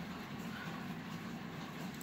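Steady low background hum of room noise, with no distinct events.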